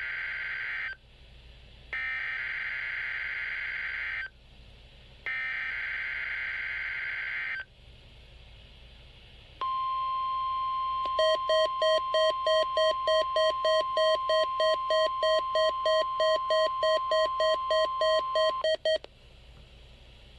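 Midland WR100 weather radio receiving a NOAA Weather Radio Required Weekly Test: three bursts of SAME digital header tones about a second apart, then the steady warning alarm tone. After about a second and a half the radio's own pulsing alert beep joins in, about three beeps a second, and both stop together after roughly nine seconds of tone.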